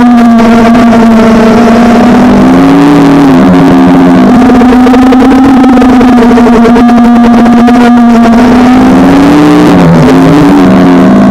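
FPV quadcopter's electric motors and propellers running at a steady pitch, heard very loud through its onboard camera. Twice, about two and a half seconds in and again near the end, the pitch splits and glides up and down as the motors change speed.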